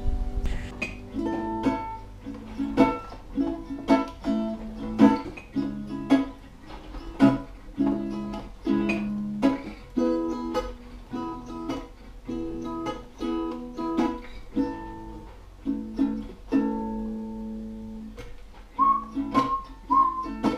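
Acoustic guitar playing a steady, rhythmic plucked tune. Near the end a whistled melody joins in.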